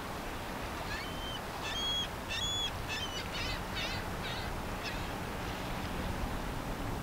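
A small songbird singing: a few clear whistled notes followed by a quick run of short chirps, over steady wind noise.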